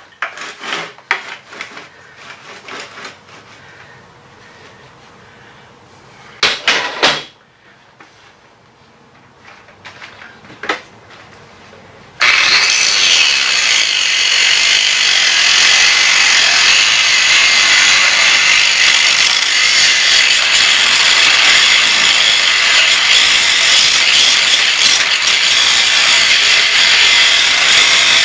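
Scattered knocks and clatters of metal parts being handled, then, about twelve seconds in, an angle grinder's abrasive disc starts abruptly and runs steadily, cutting through the steel outer race of a seized bearing on a pulley jackshaft so the bearing can come off without damaging the shaft.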